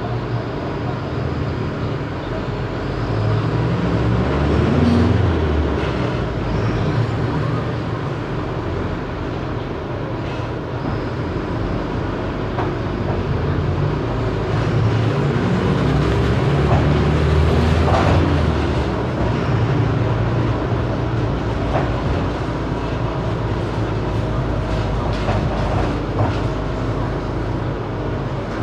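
Mercedes-Benz OF 1519 bus's front-mounted diesel engine running while the bus is under way. Twice its pitch climbs and drops back, about three seconds in and again around fifteen seconds in, with body rattles and clicks throughout.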